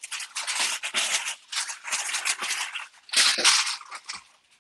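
Aluminium foil crinkling and crackling in irregular bursts as it is pressed and tucked over a roasting dish, loudest a little after three seconds in.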